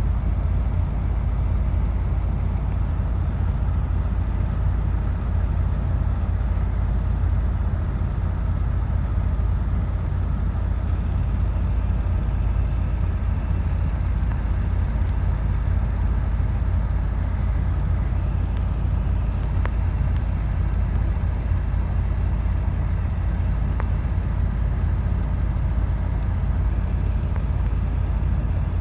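Steady low rumble of a semi truck's diesel engine and road noise, heard from inside the cab while driving.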